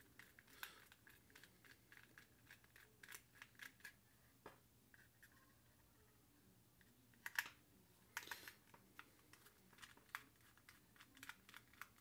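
Faint small clicks and scrapes of a precision screwdriver working the screws of plastic FPV goggles, with the plastic housing being handled; a louder cluster of clicks comes a little past halfway.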